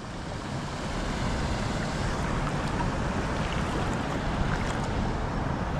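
Steady rush of water flowing through a shallow, weedy channel.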